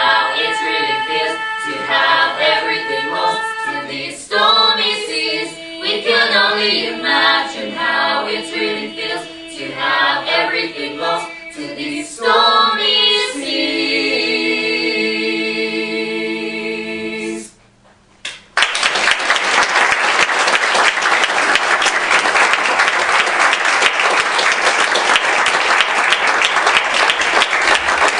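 A group of voices singing, ending on a long held chord; about a second after it stops, an audience starts applauding and keeps on.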